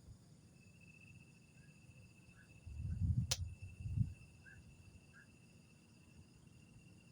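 A steady high insect trill with scattered short chirps, of the kind night insects make. About three seconds in, a low rumbling knock lasting about a second and a half stands out above it, with one sharp click in the middle.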